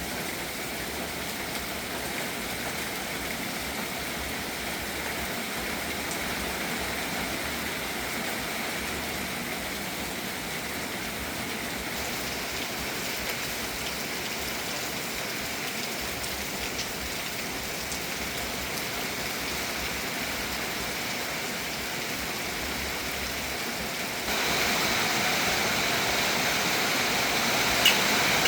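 Steady rain falling, an even hiss that steps up suddenly to a louder, brighter downpour about three-quarters of the way through, with a couple of sharp drips or ticks near the end.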